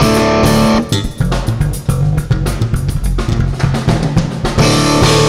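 Live jazz trio of electric bass, electric guitar and a Yamaha drum kit playing the closing bars of a tune, with drum hits throughout. Near the end the band strikes and holds a final chord.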